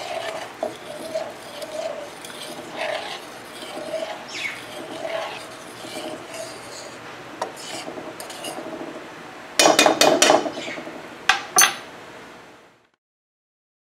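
A metal fork stirs a simmering onion cream sauce in a nonstick frying pan, with small scrapes and taps against the pan. About ten seconds in there is a quick run of loud metal clinks, then two more single clinks, and the sound cuts off.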